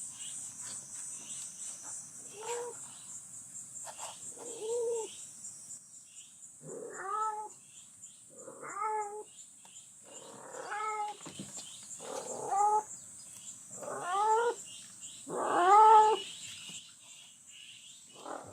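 A cat meowing over and over, about nine drawn-out calls roughly two seconds apart that grow louder toward the end.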